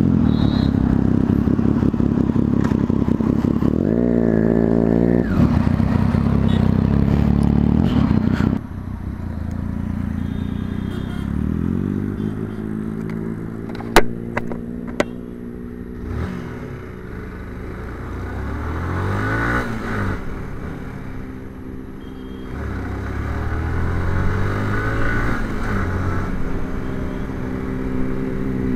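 Wind and engine noise on a moving motorcycle, the engine briefly rising in pitch about four seconds in. Then, quieter, a motorcycle engine accelerating through the gears, its pitch climbing and dropping back several times, with a single sharp click about halfway through.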